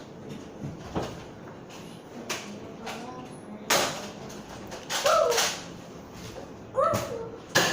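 Nerf foam-dart blasters being fired and primed, a string of sharp clacks and knocks, with a child's falling 'woo' shout twice near the middle and end.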